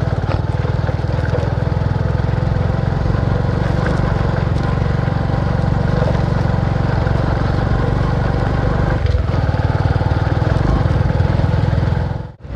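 Bajaj V15 motorcycle's single-cylinder engine running steadily under load as it climbs a rough dirt track. The sound drops out suddenly and briefly near the end.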